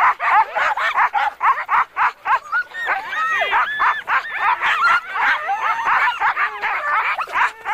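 A pack of sled dogs barking and yelping all at once, a dense overlapping chorus of high yips and barks with no pause.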